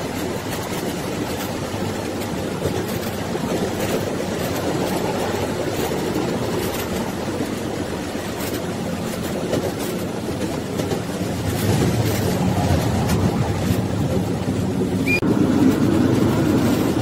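Rail vehicle running along the track, heard on board: a steady rumble with scattered sharp clicks from the wheels. It grows louder about two thirds of the way through.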